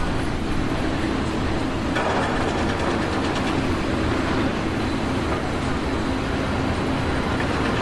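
Loud, steady mechanical noise of a large machine running, with a steady low hum; it grows brighter and hissier about two seconds in.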